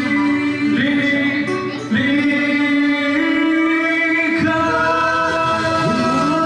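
A man singing a Mandarin song into a handheld karaoke microphone over a backing track. He holds long, high notes that step up and down in pitch a few times.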